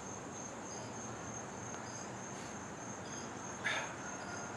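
Crickets trilling steadily in a thin, continuous high-pitched chorus over faint outdoor background noise, with one brief soft sound about three and a half seconds in.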